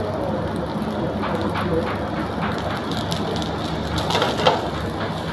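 Egg fried rice sizzling in a frying pan over a gas flame as the pan is shaken and the rice tossed, with scattered scrapes and clicks. A sharp knock about four and a half seconds in.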